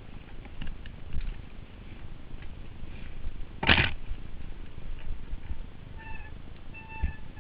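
Mountain bike rattling and thudding down a rough, wet, rocky trail, with a sharp clatter about halfway through. Near the end the brakes give short squeals, twice, at one steady pitch.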